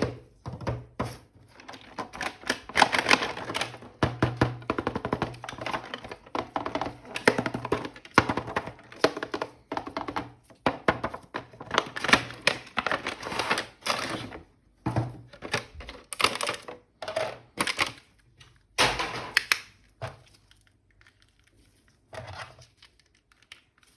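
Hands handling and opening plastic toy packaging: a dense run of irregular clicks, taps and crinkles that thins out to a few clicks near the end.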